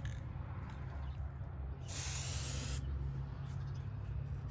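Aerosol spray-paint can (Rust-Oleum enamel, 5-in-1 nozzle on its vertical fan setting) sprayed once, a hiss of about a second starting some two seconds in.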